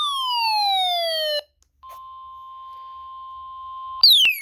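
Emergency alert tones for a severe thunderstorm warning. A falling siren-like sweep ends about a second and a half in; after a short gap a steady single-pitch tone holds for about two seconds, and another falling sweep starts near the end.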